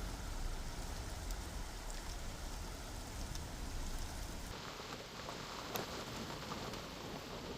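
Steady, even rush of flowing water with a few faint ticks; the rush turns slightly duller about halfway through.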